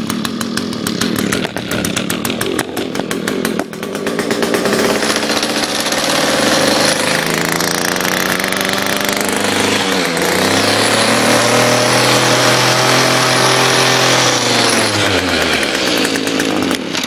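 Echo curved-shaft string trimmer's small two-stroke engine running just after starting: idling for a few seconds, then revved up to high speed and held there with a brief dip in the middle, then falling back to idle near the end. It runs smoothly.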